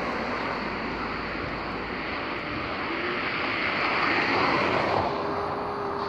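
Wind buffeting the microphone over a steady outdoor roar that swells about four seconds in; a faint steady tone joins near the end.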